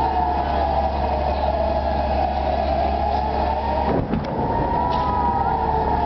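Civil-defence air-raid siren wailing, its pitch slowly falling, then rising again about four seconds in before falling once more: the warning of incoming rockets.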